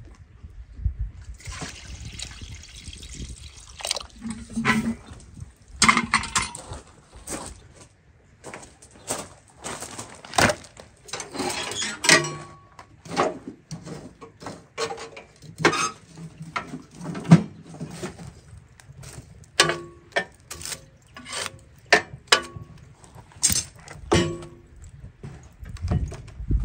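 Liquid poured from an aluminium milk can into a steel pot for a couple of seconds, followed by a long run of knocks and metal clanks as the wood stove's firebox is worked and a split log is pushed in.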